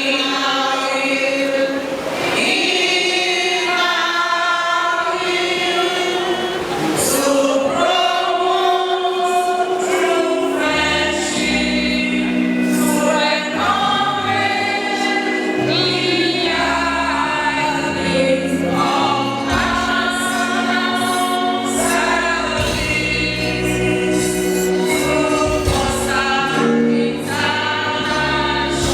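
Choir singing a gospel-style song. A steady bass accompaniment comes in about ten seconds in.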